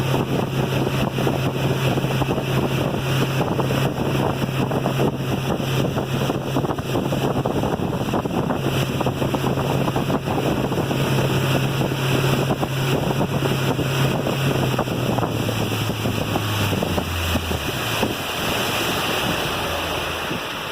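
Mercury 115 four-stroke outboard running steadily at speed on a test run, with wind buffeting the microphone and water rushing past the hull. About fifteen seconds in the engine throttles back, its pitch dropping in steps as the boat slows.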